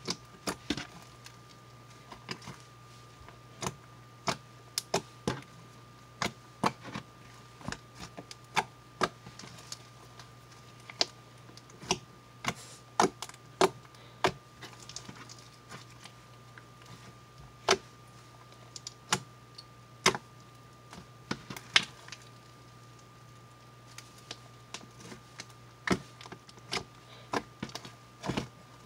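Slime with lotion mixed in, squeezed and kneaded by hand, giving irregular sharp clicks and pops, sometimes several a second, over a faint steady hum.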